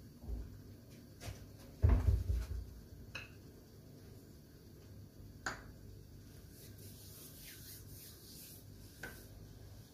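A few faint clicks and knocks, with one louder low thump about two seconds in, over a faint steady background.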